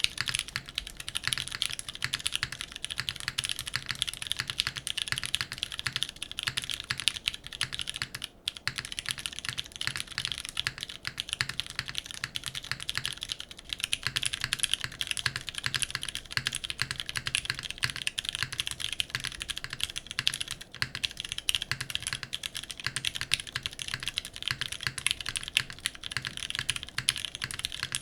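Continuous typing on a custom mechanical keyboard, a TGR x Singa RAT Unikorn, with vintage Cherry MX Brown tactile switches on a carbon fibre plate. Keystrokes clack in a dense, steady stream, with a brief pause about eight seconds in.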